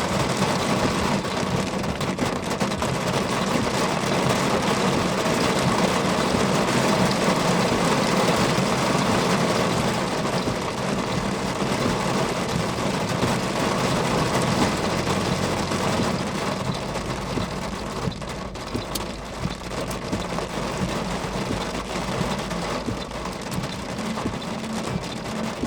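Heavy rain pelting a moving car, heard from inside the cabin as a steady hiss over the car's running and road noise. It eases slightly about two-thirds of the way through.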